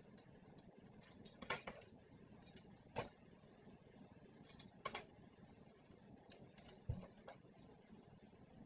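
Faint, brief rustles and crackling clicks a second or two apart as Velcro hair rollers are peeled out of the hair and handled, with a soft low thud near the end.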